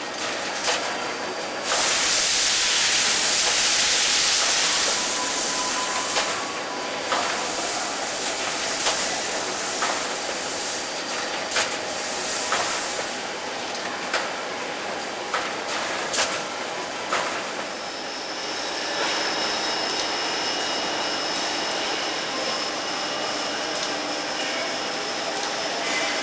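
ET 22R6 automatic cup filling and sealing machine running. Near the start there is a loud hiss of air lasting about three seconds, then sharp clacks every second or two from its working cycle over a steady machine noise, with a faint high whine in the second half.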